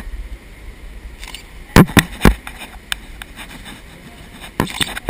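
Sharp knocks, three loud ones close together about two seconds in and another short cluster near the end, over a low rumble.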